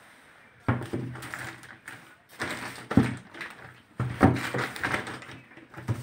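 Plastic lids of a twin-tub washing machine being handled and shut: four sudden thunks and knocks, about a second in, three seconds in, four seconds in and near the end, each with a short rattle, the sharpest about three seconds in.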